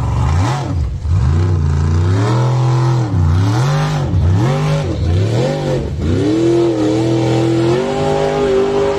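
Formula offroad buggy's engine revving hard, its pitch rising and falling about once a second as it drives up a steep dirt hill, then climbing and holding at high revs near the end.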